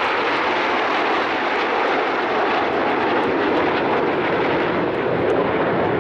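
Jet noise from a formation of Aermacchi MB-339 jet trainers, each powered by a single turbojet, passing overhead and moving away. The noise is steady, and its pitch sinks gradually.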